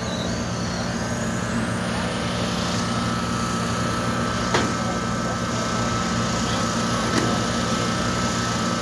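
Heavy equipment engine idling steadily, with a faint steady whine over the low drone and a couple of light knocks.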